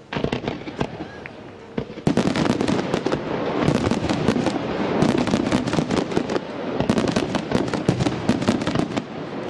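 Aerial fireworks display: a sudden burst of sharp bangs and crackles that thickens about two seconds in into a dense, rapid barrage of reports.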